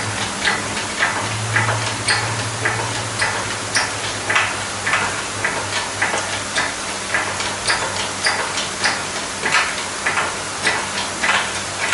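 Hand-pumped hydraulic engine hoist being worked to lift the engine: the pump handle gives a regular click on each stroke, a little under two a second.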